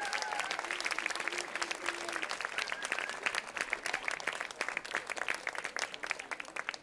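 Concert audience applauding after a song, the clapping gradually thinning out and dying away.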